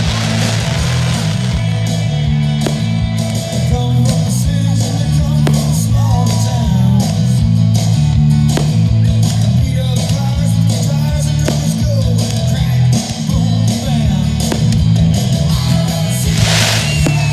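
Rock music with guitar playing over loudspeakers, with sharp firework bangs scattered through it and a short burst of hiss near the end.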